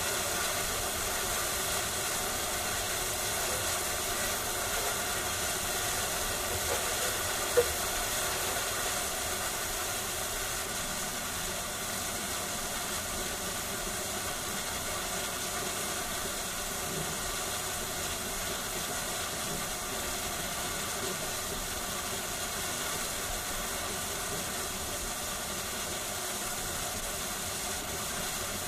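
Steady hiss of live steam from a standing Great Western 'Castle' class 4-6-0 steam locomotive, with one sharp click about seven and a half seconds in.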